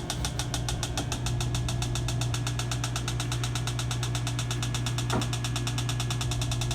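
Electronic refrigerant leak detector clicking in a rapid, even ticking over a steady low hum, the ticks speeding up as the probe picks up R-134a at the evaporator coil: a sign of a refrigerant leak there.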